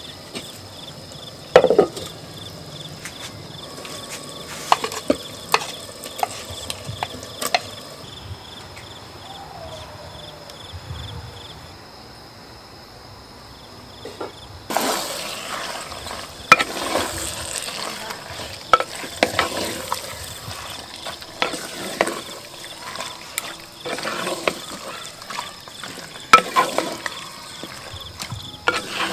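Food sizzling in a pot while a utensil stirs and scrapes it, with scattered clinks. A steady high insect chirp runs underneath for about the first half.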